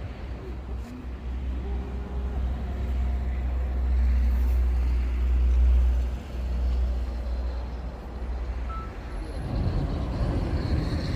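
A heavy road vehicle driving past with a low engine rumble that swells to its loudest about four to six seconds in and drops away suddenly just after; more traffic noise follows near the end.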